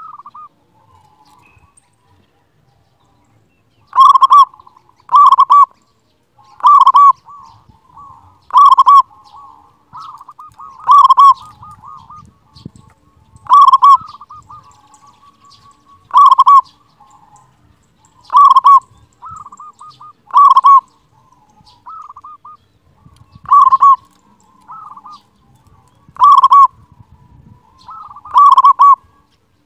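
Zebra dove (perkutut) cooing: about a dozen loud calls a couple of seconds apart, with softer rolling coos between them, starting about four seconds in.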